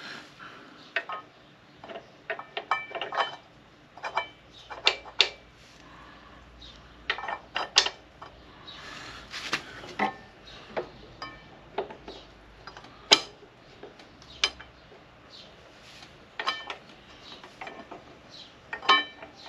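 Irregular metallic clinks, taps and short scrapes of hand tools and brake parts being handled during a motorcycle brake pad change, with some strikes ringing briefly; the sharpest click comes about two-thirds of the way through.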